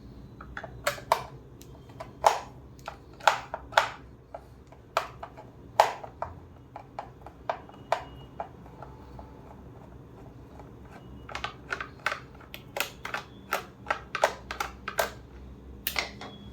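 Irregular sharp clicks and knocks of hard plastic and metal parts being handled and tapped while a Philips steam iron is taken apart, with a pause of about two seconds in the middle.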